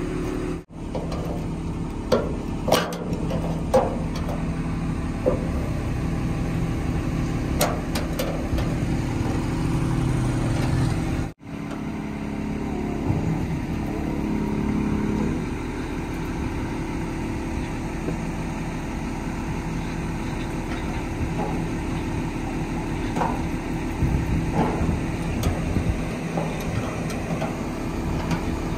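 JCB 205 tracked excavator's diesel engine running steadily at idle, with scattered sharp knocks and clicks on top.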